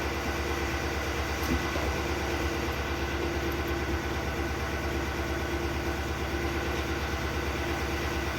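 Honda Life kei car's engine idling steadily, with a faint click about one and a half seconds in.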